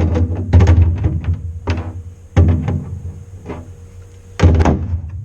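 A series of loud, irregular knocks and clunks, about six in all, each with a short ring, as aluminium airframe parts and hand tools are handled and set down on a workbench.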